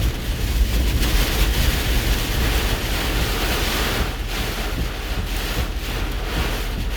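Hurricane-force eyewall wind rushing and buffeting a vehicle, heard from inside the cab as a continuous loud roar of noise with a deep rumble, rising and easing a little with the gusts.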